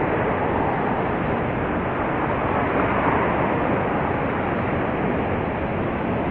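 Horseshoe Falls at Niagara pouring steadily: an even, unbroken rush of falling water.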